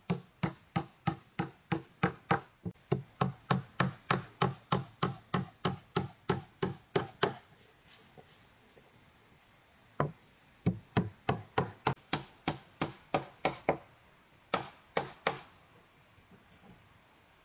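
Rapid chopping: a blade striking wood about three times a second, in two long runs with a pause of a couple of seconds between them and a few last strokes near the end.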